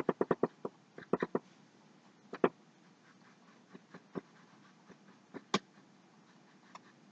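Small paintbrush tapping and dabbing against a stretched canvas in short strokes. It makes a quick run of light ticks at first, then a few scattered single taps, one stronger about two and a half seconds in.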